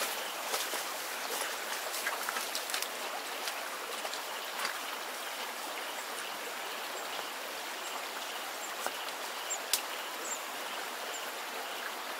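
Steady rush of flowing flood water from a swollen stream. Footsteps and rustling through grass crackle over the first few seconds, and a few short high chirps come later.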